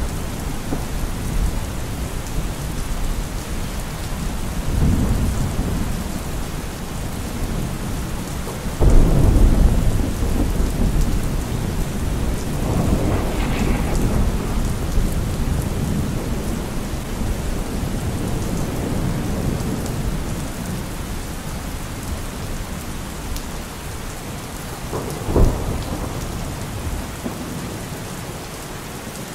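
Thunderstorm: steady rain with rolling thunder. A low rumble swells about five seconds in, a louder one starts abruptly near nine seconds and rolls on for several seconds, and a shorter, sharper clap comes near the end.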